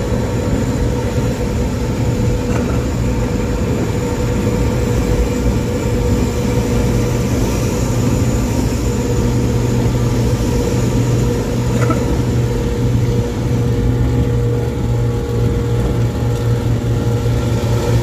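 Intercity bus running at speed on the highway, its engine and exhaust making a steady, deep growl, the 'ngorok' sound of its exhaust.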